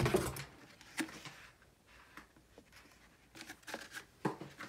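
A small cardboard putty box being handled in the hands: light scraping and rustling of card, with a few sharp taps and knocks near the end as it is set onto a stack of similar boxes.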